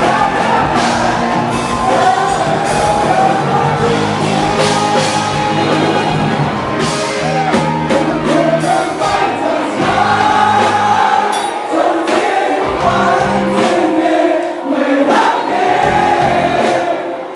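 Live band playing: singing through microphones over electric bass and drums, with crowd noise from the audience. The deep bass thins out about two-thirds of the way in, leaving mostly the voices.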